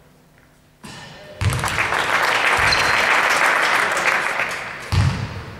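Spectators clapping for about three seconds, starting about a second and a half in. A basketball bounces once on the court near the end.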